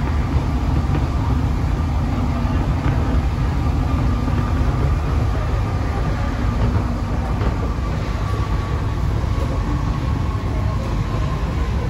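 Alstom NS-16 rubber-tyred metro train running between stations, heard from inside the car: a steady deep rumble, with a high whine that sinks slightly in pitch near the end.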